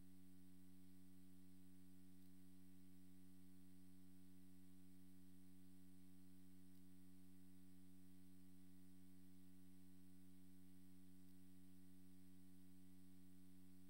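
Near silence with a faint, steady hum made of several fixed tones that never change.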